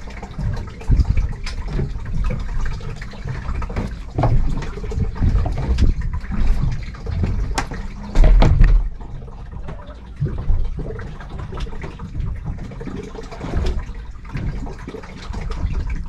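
Water sloshing and lapping against a small boat's hull in uneven surges, with a loud low thump a little past eight seconds in.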